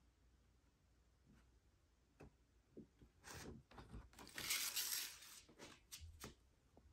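Paper booklet pages being handled and leafed through: scattered soft rustles and light taps, with one louder rustle of about a second near the middle, then a few small clicks.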